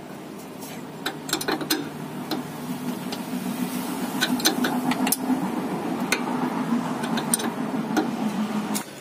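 Spanner working the nut of a car's stabilizer-bar link loose: irregular metallic clicks and ticks, a few a second at times, over a steady low hum that grows louder and cuts off suddenly near the end.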